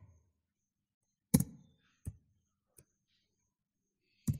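A few separate keystrokes on a computer keyboard. One sharp, louder tap comes about a second and a half in, softer taps follow about two and three seconds in, and another comes near the end.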